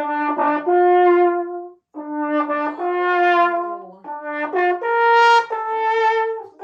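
Trombone played live as a comic sound effect: a string of held notes in short phrases, with a brief break about two seconds in before more notes.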